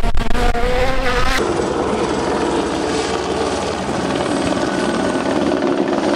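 Rally1 cars' turbocharged four-cylinder engines on a gravel stage. First a Toyota GR Yaris Rally1 with its engine note rising and falling; then, after a sudden change about a second and a half in, a steady engine drone from a Hyundai i20 N Rally1 running through a dusty corner.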